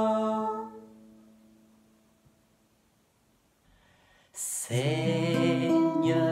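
A man and a woman singing to an acoustic guitar: their last held note and the guitar chord fade out over about two seconds. After a pause of near silence, about four seconds in, a new guitar chord starts the next song.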